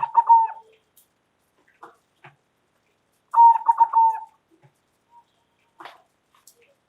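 Zebra dove (perkutut) cooing: two short, loud phrases about three seconds apart, each a clear note breaking into a quick run of stuttering coos. Faint scattered clicks sound between the phrases.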